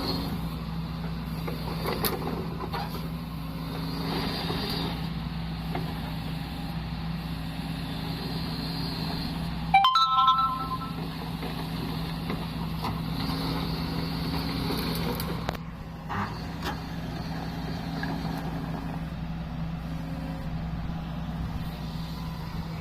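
Heavy diesel engine running steadily at an even speed. About ten seconds in comes one short, loud two-note beep.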